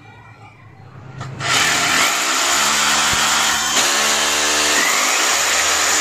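Corded electric drill boring into the ceiling: the drill starts about a second and a half in and runs loudly and steadily, its motor pitch shifting as it bites.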